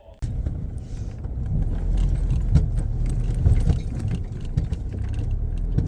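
Off-road vehicle driving on a rough track: a steady low rumble of engine and tyres, with loose items rattling and knocking throughout.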